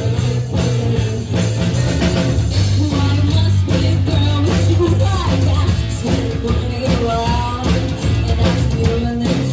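Live amplified rock band playing: electric guitar, bass and drum kit together, loud and continuous.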